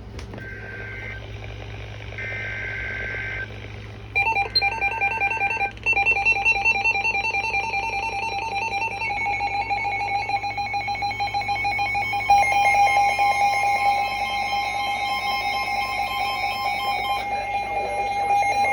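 Emergency Alert System header: three short bursts of screeching data tones about a second apart, then the steady EAS attention tone from about six seconds in, announcing a new alert.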